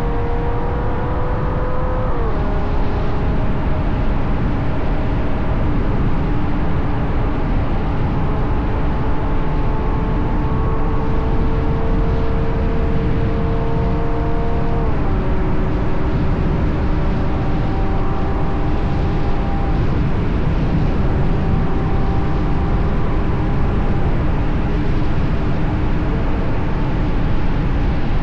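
Ferrari GTC4Lusso's V12 engine through its Capristo exhaust, running at steady cruise under light load, with a dense low rumble of wind and tyre noise. The engine note climbs slowly and steps down twice, about two seconds in and about halfway through, as the gearbox shifts up.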